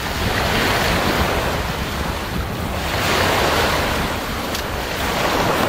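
Small waves washing up and breaking on the beach, the wash swelling twice, with wind buffeting the microphone.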